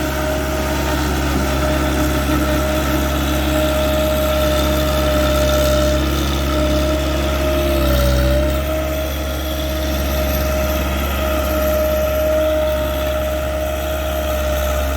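Engine of the machine driving a post-hole auger, running steadily, with a brief dip in pitch about eight seconds in before it settles back.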